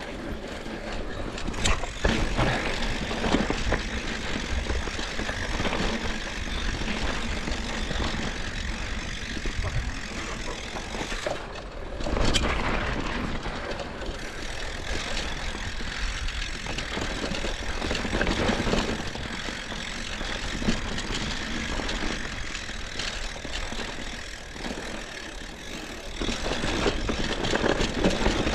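Wind buffeting the microphone and rumble from a moving ride, with scattered knocks from bumps along the way.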